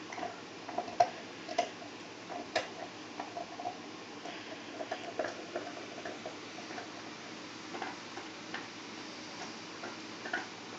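Irregular soft clicks and light scratches of fingertips and fingernails rubbing over a boa constrictor's head scales close to the microphone.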